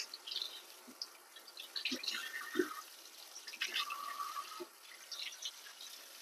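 Kitchen tap running into a stainless-steel colander in a metal sink, splashing as pieces of boiled beef and tendon are rinsed and turned over by hand, with a few soft knocks about two seconds in.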